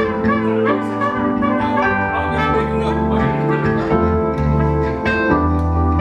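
Live band playing: brass horns holding and moving between sustained notes over bass and drums, with steady cymbal strokes.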